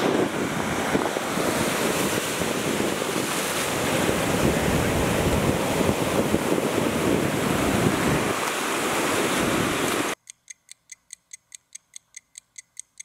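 Surf breaking and washing up a beach, with wind buffeting the microphone. About ten seconds in it cuts off suddenly to a steady clock-like ticking, about five ticks a second.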